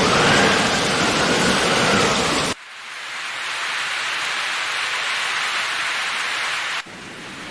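Gusting wind with a faint wavering whistle for about two and a half seconds, then an abrupt cut to a steady downpour of heavy rain hissing. Near the end the rain drops suddenly to a quieter level.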